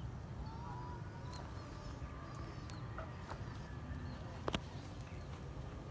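Rural outdoor ambience: faint, scattered bird chirps over a steady low rumble. A few sharp clicks, the loudest about four and a half seconds in.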